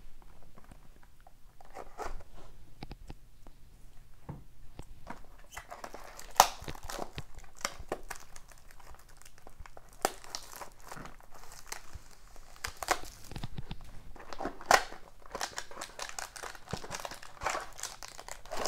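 Plastic shrink wrap crinkling and tearing as a sealed hobby box of hockey cards is unwrapped, a steady run of irregular crackles with a couple of sharper snaps about six seconds in and near fifteen seconds.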